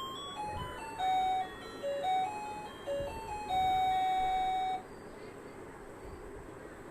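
A simple electronic jingle played in single beep-like notes, ending on one long held note about five seconds in; after it stops only a faint steady background hiss remains.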